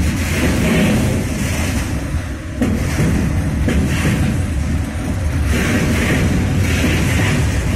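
Freight train of rail tank wagons rolling past close by: a steady loud rumble of wheels on rails, with a few sharp thuds, one about two and a half seconds in.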